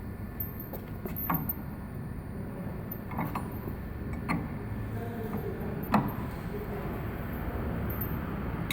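Wrenches clinking on the collet nut of a CNC router spindle as a router bit is tightened into its collet: a few scattered metallic clicks over a low steady hum.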